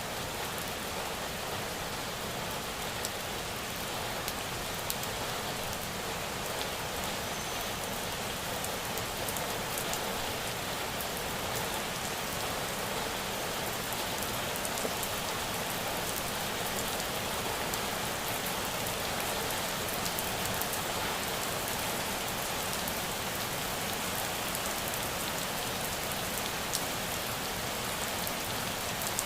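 Steady rain falling on a surface, an even hiss with scattered ticks of individual drops.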